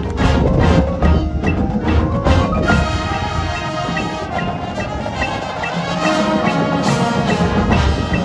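Marching band playing, led by the front ensemble's marimbas and vibraphones over drums and brass. About three seconds in the heavy low hits drop away, leaving held keyboard tones and a steady tick. The full low end returns near the end.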